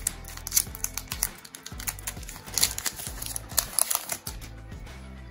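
Stiff trading cards being handled and flicked through one after another, giving irregular sharp clicks and snaps, over background music with held low notes.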